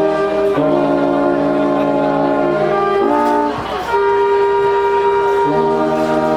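A high-school wind band playing slow, sustained brass-led chords that change every second or two. About halfway through, the lower parts drop out briefly, leaving one high held note before the full chord returns.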